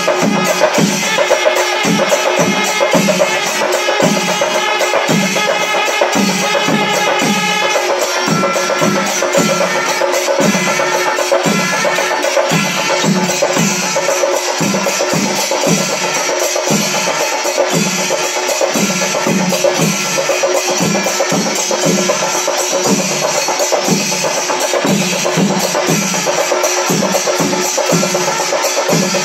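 Kerala chenda melam: chenda drums beat a steady pulse of low strokes about twice a second, with ilathalam hand cymbals clashing densely over them. Kombu horns sound held notes that thin out about eight seconds in.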